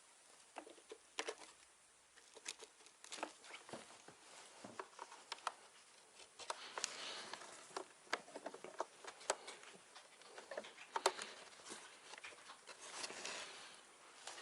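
Irregular light clicks, taps and rustles of hands handling small hardware parts, with several sharper clicks, the loudest about eleven seconds in.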